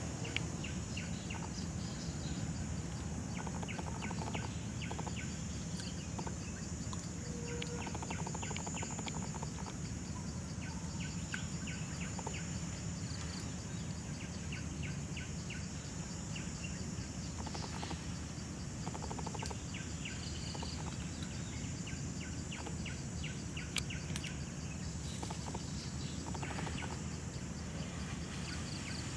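Forest ambience: a steady high insect drone, with clusters of short rapid chirps from insects or birds, over steady low background noise.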